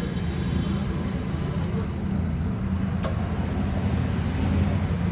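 Steady low background rumble with a hum, like nearby traffic or a running engine, with a single sharp click about three seconds in.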